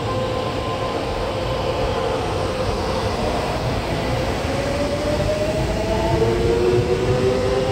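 Taiwan Railway EMU500-series electric multiple unit pulling out along the platform, wheels rumbling on the rails. From about halfway through, its traction motors give a whine that rises steadily in pitch as the train accelerates.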